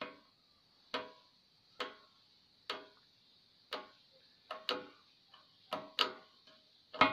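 Contact-breaker points of a Citroën 2CV flat-twin engine being flicked open by hand with a tool, the ignition switched on, to check for a spark after the points got wet. Each flick is a sharp metallic click, about one a second at an uneven pace.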